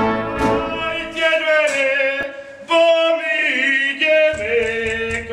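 A man singing in long held notes that change pitch every second or so, with a wavering vibrato on some.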